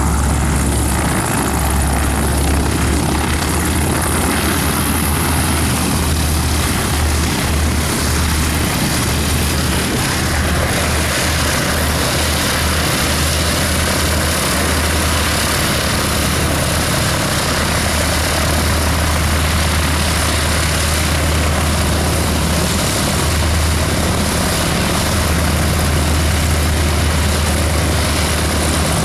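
Extra EA 300/LC aerobatic monoplane's six-cylinder Lycoming engine and propeller idling steadily as it taxis slowly on the ground.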